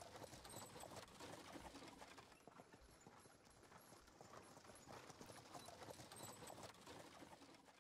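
Faint clip-clop of horse hooves in a quiet travel ambience, dying away at the end.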